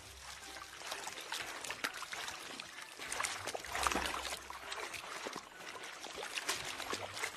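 Water trickling and splashing, with many small irregular clicks that grow busier partway through.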